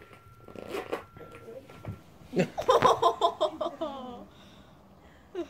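A burst of high-pitched giggling laughter, quick pulses that trail off with a falling pitch, about two seconds in.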